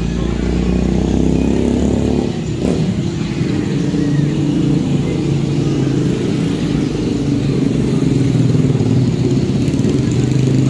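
A motor vehicle's engine running steadily, with a single sharp click about two and a half seconds in.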